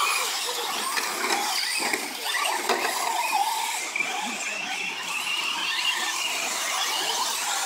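Radio-controlled 4WD short-course trucks racing on a dirt track, their motors and drivetrains whining, with the pitch rising and falling as they accelerate and brake.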